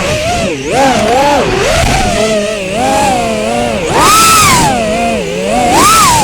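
FPV racing quadcopter's four 2207 1700kV brushless motors and 5-inch props, heard through the drone's onboard microphone: a buzzing whine that keeps rising and falling in pitch with the throttle, with sharper, louder climbs about four and six seconds in.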